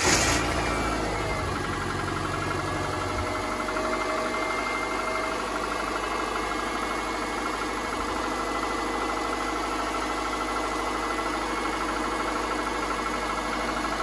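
Subaru EJ25 2.5-litre flat-four engine idling just after a cold start. A deeper low rumble eases about three seconds in, leaving a steady idle with a rapid clatter that the owner identifies as piston slap, typical of older Subaru engines when cold.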